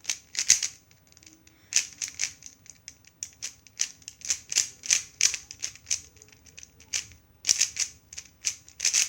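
3x3 speed cube being turned fast during a timed solve: quick, irregular plastic clicks and clacks of the layers snapping round, several a second, with short pauses between bursts of turns.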